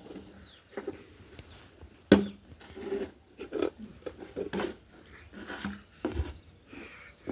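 Short, irregular clicks, taps and rustles of hair being handled and picked through for lice, with one sharp click about two seconds in.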